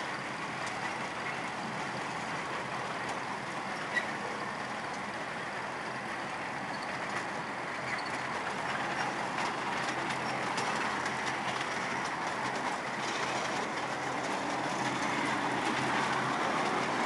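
Ride-on miniature train running along its track, heard from one of its riding cars: a steady rolling noise of the wheels on the rails with a sharp click about four seconds in and a few lighter clicks later, growing a little louder toward the end.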